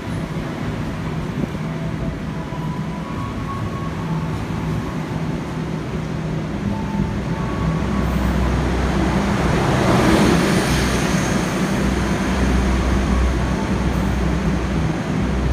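Passenger train cars rolling past a station platform: a steady low running hum with wheels-on-rail noise that swells about ten seconds in and then eases slightly.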